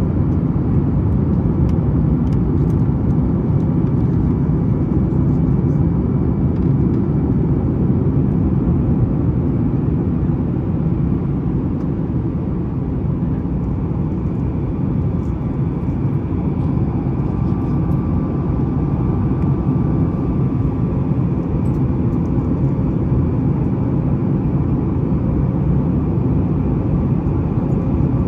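Steady cabin noise of a Boeing 737-9 MAX, heard from a window seat: a loud, even, low rumble of its CFM LEAP-1B engines and rushing air, with faint steady tones riding above it.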